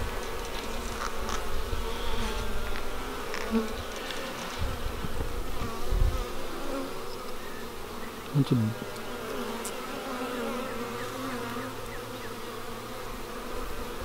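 Steady buzzing of a crowd of honeybees on a brood frame lifted out of an open hive, with a few brief low bumps near the middle.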